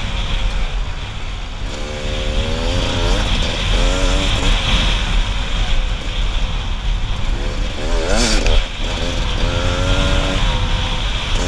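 Enduro dirt bike engine revving up and down as the rider works the throttle along a dirt trail, its pitch climbing and dropping every second or two. A steady rushing hiss of wind over the helmet-mounted microphone runs underneath, with a short burst of noise about eight seconds in.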